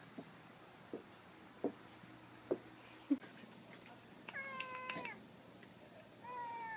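A few sharp taps in the first three seconds. Then a domestic tabby cat meows twice, sounding like a baby: first a long, level meow that drops in pitch at its end, then a shorter, higher meow that falls.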